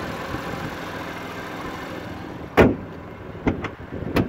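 Hood of a BMW M3 being shut: a loud slam about two and a half seconds in, two lighter knocks, then another sharp thud near the end.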